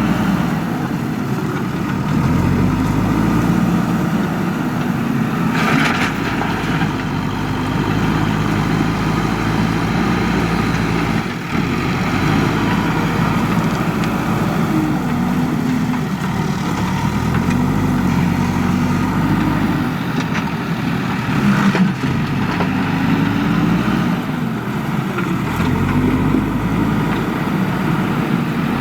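Diesel engine of a JCB 3DX backhoe loader working under load, its pitch rising and falling again and again as the machine digs and swings. A brief rush of noise cuts in about six seconds in and again about three-quarters of the way through.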